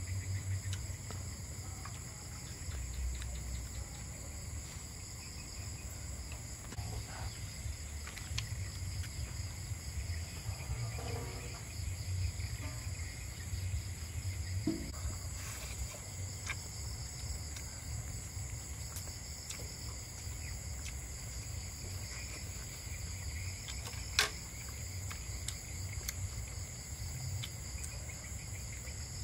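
Night insects, crickets, trilling steadily in several high pitches, over a low hum. A single sharp click sounds near the end.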